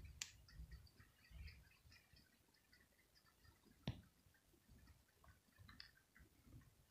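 Near silence with a faint low rumble and a few faint sharp clicks, the loudest about four seconds in.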